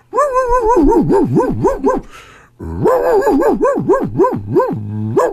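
A man imitating a dog, howling and yipping with a fast up-and-down wavering pitch. It comes in two long phrases, split by a short breathy pause about two seconds in.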